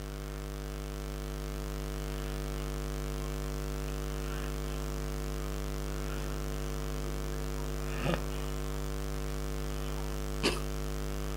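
Steady electrical mains hum with a ladder of even overtones, broken by two short knocks, one about two-thirds of the way through and one near the end.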